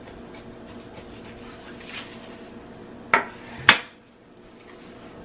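Kitchen knife cutting through a beef brisket on a wooden cutting board, with two sharp knocks on the board about half a second apart a little past halfway. A faint steady hum runs underneath.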